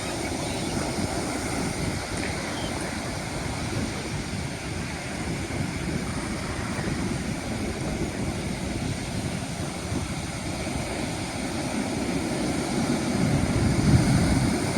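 Ocean surf washing in, with wind buffeting the microphone: a steady low rumble that swells near the end.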